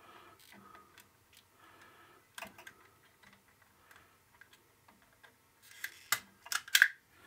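Sharp clicks and snips of a hand tool cutting an electrical wire to length. A few come about two and a half seconds in, and a louder cluster comes near the end.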